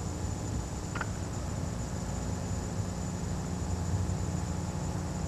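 Steady low hum with an even hiss, and one faint click about a second in.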